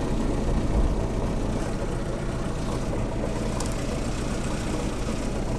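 Series 3 Land Rover's four-cylinder petrol engine idling steadily under the open bonnet. It runs rough with a misfire, which the owner suspects comes from spark plug 1 or its lead.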